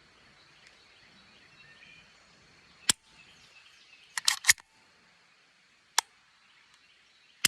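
Canik SPX Rival pistol dry-fired: a single sharp trigger-break click about three seconds in, and another about six seconds in. Between them comes a quick run of three or four clicks, as the slide is worked to reset the striker. One more click comes near the end.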